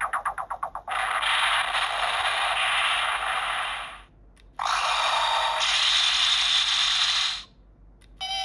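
Electronic sound effects from a transformation-toy's small speaker: a fast run of clicks that slows and fades, then two long hissing noise effects, each about three seconds, cut off abruptly with a short break between them.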